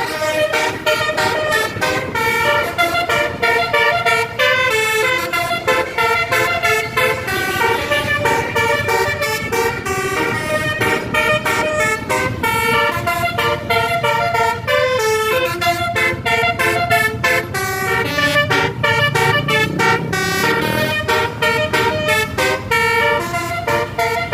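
Bus telolet horn: a multi-tone musical horn playing quick tune-like runs of short notes that jump from pitch to pitch, over and over. A low rising sound comes in under it about three quarters of the way through.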